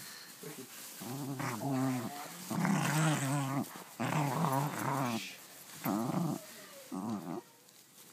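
Puggle play-growling at a plush toy, a gremlin-like grumbling voice in about five short bouts that waver in pitch, the middle ones the loudest.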